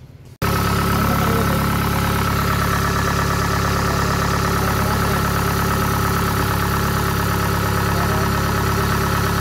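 Engine of a Japanese farm machine running steadily at idle, starting abruptly about half a second in and holding an even pitch and level.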